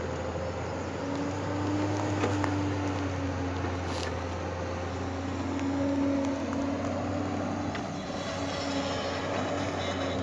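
JCB tracked excavator's diesel engine running steadily under load. Its note rises and falls twice as the hydraulics work the arm and bucket in the soil.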